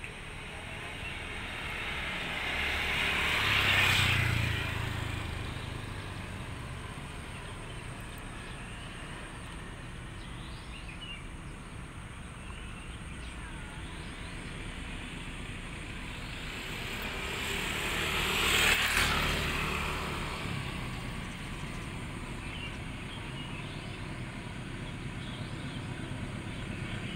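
Two road vehicles pass close by, one about four seconds in and the other about nineteen seconds in, each swelling up to a peak and fading away, over a steady background hum of traffic.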